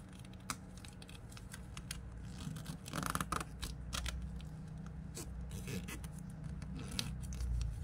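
Origami paper being folded and creased by hand: scattered crinkles and rustles of paper, with a louder crackle about three seconds in.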